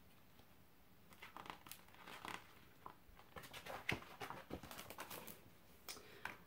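Pages of a large picture book being turned by hand: faint paper rustling and crinkling with scattered soft clicks, the sharpest snap a little past the middle.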